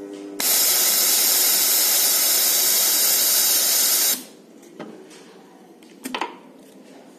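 Loud steady hiss of compressed air blowing from a hot bar soldering machine's cooling nozzle onto the heated bar to cool the fresh solder joint, lasting nearly four seconds and cutting off suddenly. A couple of faint clicks follow as the soldering head lifts.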